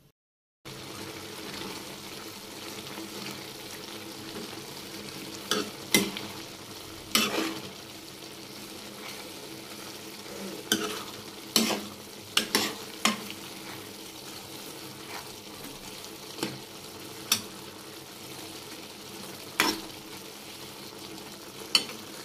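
Chopped apple for Himachali apple meetha sizzling and simmering in its liquid in a kadai, while a steel ladle stirs it. The ladle knocks against the pan about a dozen times, irregularly.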